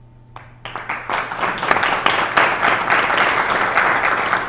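Small audience applauding: after a brief quiet moment the clapping starts less than a second in and quickly builds into steady, dense applause.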